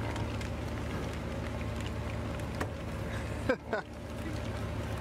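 A bison herd walking on an asphalt road: scattered hoof clicks over a steady low motor rumble. About three and a half seconds in comes a short cry that falls in pitch.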